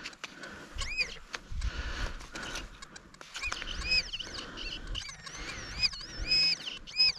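XP metal detector sounding a warbling target tone that rises and falls in pitch, once about a second in and then again and again from about halfway, as it is passed back and forth over a metal target in dug-up frozen soil. Low dull knocks of digging come a second or two in.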